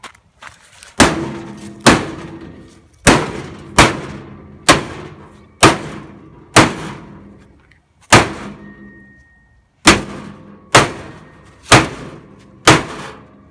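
About a dozen heavy hammer blows on a washing machine's metal body, roughly one a second with a longer gap in the middle, each leaving a short metallic ring.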